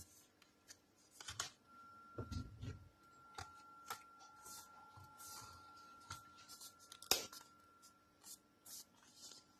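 Hands working on an opened MacBook during reassembly: scattered small clicks and taps of case parts, short scraping and rustling, and one sharp click about seven seconds in. A faint steady high whine runs underneath from about two seconds in.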